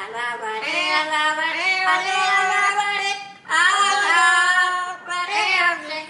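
Amazon parrots singing a human-style melody in long, wavering held notes, with short breaks about three and a half and five seconds in.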